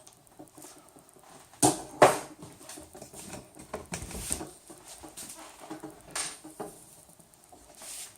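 Handling noise from assembling frame parts: two sharp knocks about two seconds in and another later, with small clicks, taps and scraping between.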